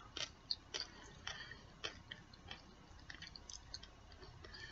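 Faint wet mouth clicks and smacks, scattered irregularly, from sucking on a hard candy with a cream filling as it melts on the tongue.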